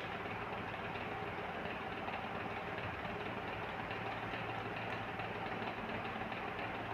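Steady machine hum with a hiss, even throughout and without distinct events.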